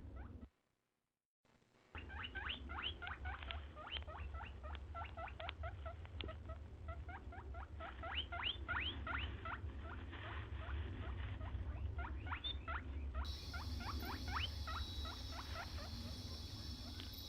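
Hedgehog squeaking: a rapid, irregular run of short high squeaks, several a second, with a brief dropout about a second in.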